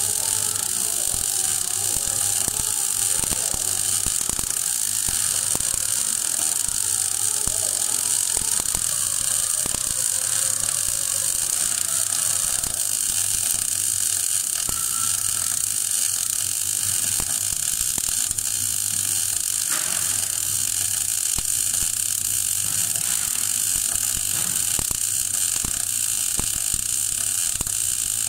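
MAG (gas metal arc) welding arc crackling and hissing steadily during a vertical-up fill pass on 12 mm steel plate, run at 16.5 volts and 3.2 metres per minute wire feed. A steady low hum runs underneath.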